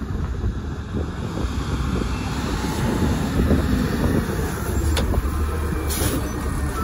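McNeilus ZR automated side-loader garbage truck approaching and pulling up, its engine rumbling steadily and growing louder as it comes close. About six seconds in, as it stops, there is a short hiss.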